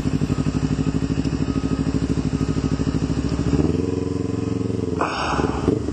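Kawasaki Ninja 300's parallel-twin engine running steadily at low revs, its note shifting slightly about halfway through. A short hiss comes near the end.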